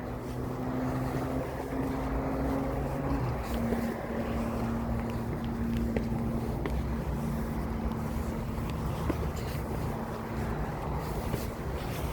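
A motor engine running steadily, a low drone whose pitch shifts slightly about three seconds in, over a low rumble.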